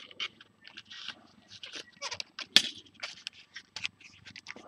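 A small circuit board and its wires being handled and pressed back into a foam RC-plane fuselage: a run of short, irregular scrapes, rubs and clicks of plastic against foam, the loudest a sharp click about two and a half seconds in.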